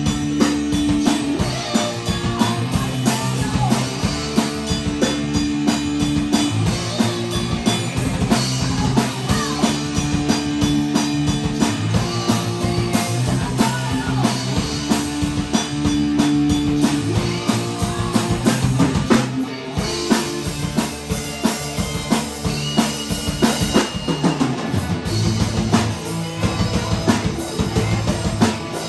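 Live rock band playing: a busy drum kit beat with bass drum and snare, under bass and electric guitars with held notes recurring every few seconds.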